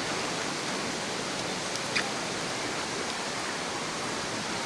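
Shallow rocky river rushing steadily, running high and fast after rain, with a single sharp click about two seconds in.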